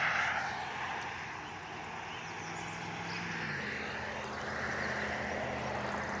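A steady low engine hum from a distant motor, its pitch shifting slightly about halfway through.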